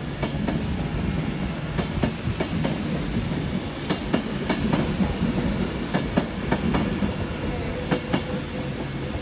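Express passenger train rolling along the track, with a steady rumble and irregular sharp clicks as its wheels pass over rail joints and pointwork.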